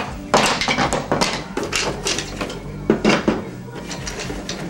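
Wooden toy train track pieces clattering and knocking against one another as they are handled, in a run of irregular clicks and clacks.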